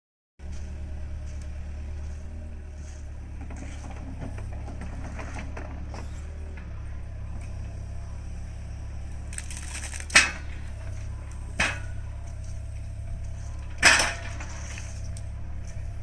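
Compact excavator's diesel engine running as a steady low hum, with three sharp knocks in the second half, the loudest near the end.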